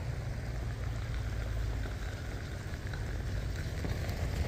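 Steady rushing of river water with the low rumble of an off-road vehicle approaching on the road, slowly growing louder near the end.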